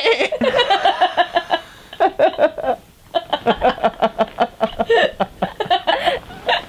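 A girl, a boy and a man laughing hard together in quick rhythmic bursts, with a short break about three seconds in.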